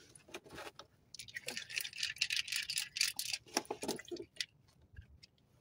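Rapid back-and-forth scrubbing of a small metal Yanmar TF160 engine part being washed with water in a plastic tray, a dense rasping that fades out about four seconds in.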